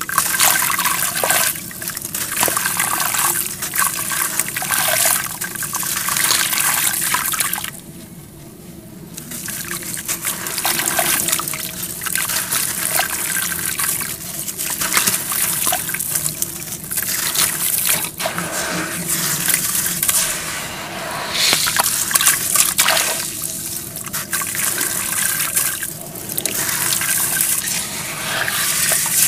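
Blocks of dry, gritty sandy clay dipped into muddy water and crushed by hand: water sloshing and trickling, with gritty crumbling and a fizzing as the dry dirt soaks and foams. There is a brief lull about eight seconds in.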